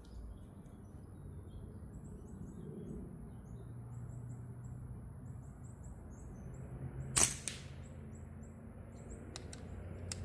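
A single airgun shot, one sharp crack about seven seconds in, with birds chirping throughout and two faint clicks near the end.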